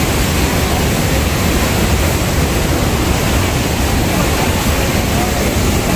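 Loud, steady rush of Niagara's Bridal Veil Falls pouring down onto the rocks just in front of the listener, with the hiss of its spray.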